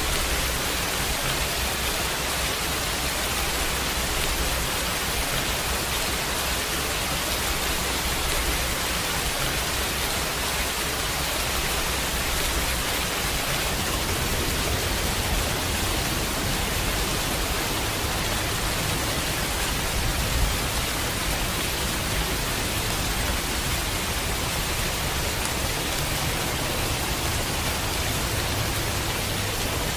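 Steady heavy rain, an even hiss with no breaks or distinct drops standing out.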